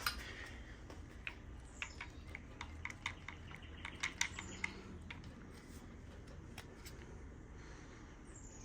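Scattered light clicks and taps of hand tools and engine parts being handled, mostly in the first five seconds, over a faint steady low hum.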